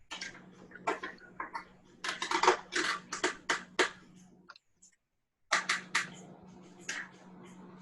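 Quick irregular clicks and knocks of hard plastic being flexed and handled, as a freezer's air damper cover is bowed and worked out of its mounting, heard over a phone call, with a steady low hum underneath. The sound cuts out briefly twice.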